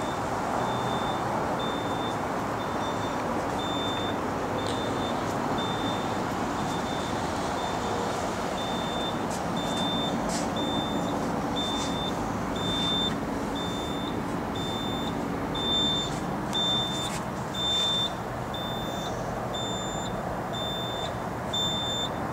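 CAT 259B compact track loader running, its backup alarm giving a high-pitched beep about once a second over the steady engine noise.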